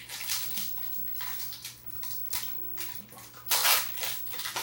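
Foil booster-pack wrapper crinkling and rustling in the hands in a few short bursts, the loudest about three and a half seconds in.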